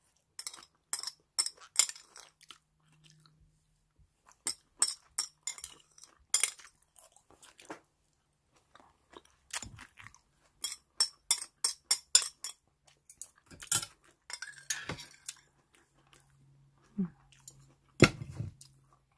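Close-up chewing of crisp raw radish microgreens with porridge: runs of short crunches at about four or five a second, in bursts with pauses. A heavier knock comes near the end.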